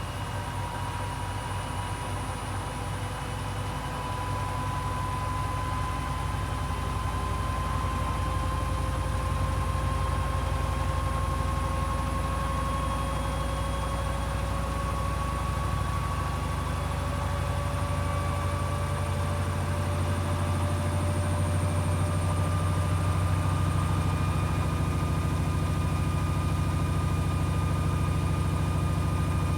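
Hoover HW411AMC washing machine on its final spin: the motor's whine rises slowly and steadily in pitch as the drum gathers speed, over a constant low hum.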